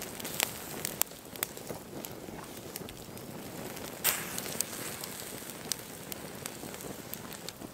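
Wood campfire crackling, with sharp irregular pops over a steady faint hiss; the loudest pop comes about four seconds in.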